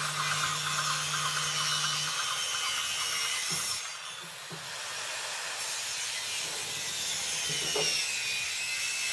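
Handheld circular saw running and cutting into a thick block of solid wood, its motor whine wavering in pitch as the blade bites. It eases off briefly just before the middle, then cuts on.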